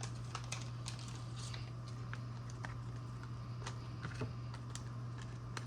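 Trading cards being handled and turned over, faint scattered clicks and taps of card stock, over a steady low hum.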